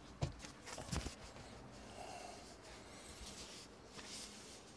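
Two sharp knocks, the first about a quarter second in and the second about a second in, then soft rustling of a cloth towel being handled against a bowling ball.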